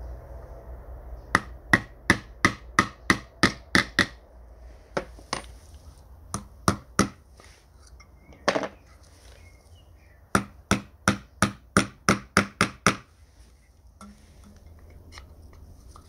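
Small wooden-handled hammer tapping small nails through a thin metal strip into a wooden drawer resting on an anvil. Two quick runs of about nine or ten taps each, with a few single taps between them.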